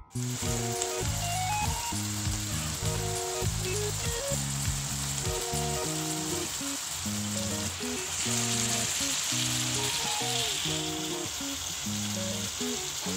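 Chicken pieces with chillies, shallots and spring onions sizzling in sweet soy sauce in a wok, a steady frying hiss that grows louder past the middle. A background music track with a stepping melody plays over it.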